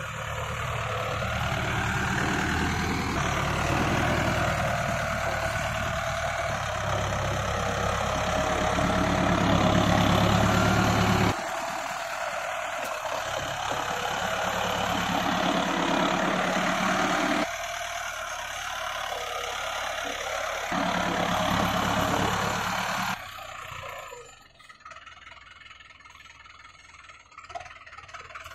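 Tractor engine running steadily in the field, its sound changing abruptly several times and much quieter for the last few seconds.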